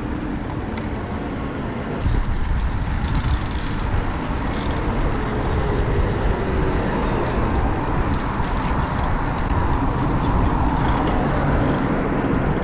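Street traffic noise heard from a moving bicycle, with a low rumble that steps up in loudness about two seconds in.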